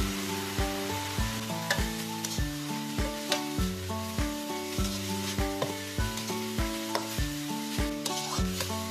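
Stir-frying in a metal pan: beef, sliced onion and tonkin jasmine flowers sizzling while a spatula scrapes and tosses them. Background music with a steady beat plays throughout.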